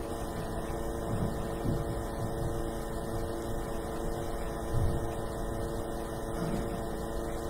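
Steady electrical hum from the church sound system, several even tones held throughout, over low room rumble with a few faint soft thumps.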